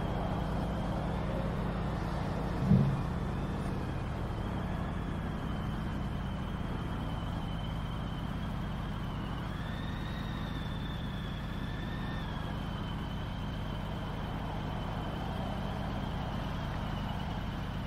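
Harley-Davidson V-twin motorcycle engines idling with a steady low rumble, with a single sharp knock about three seconds in.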